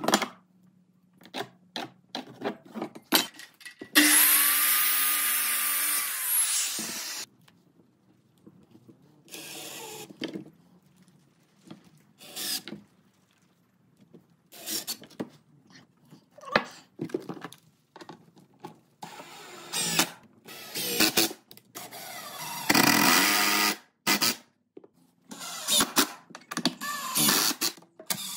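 A power saw spins up, cuts a board for about three seconds and winds down. Then a cordless drill drives screws into the wooden frame in several short bursts, with clicks and knocks of boards being handled in between.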